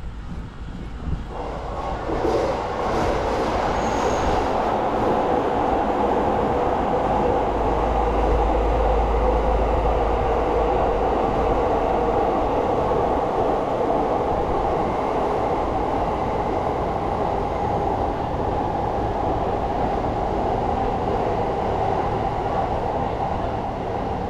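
Train running on the rails: a steady, loud rumble that comes in about a second in and holds, easing a little near the end.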